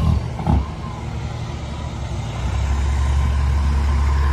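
Semi truck's engine rumbling as it comes up the road, the low rumble growing louder from about halfway through.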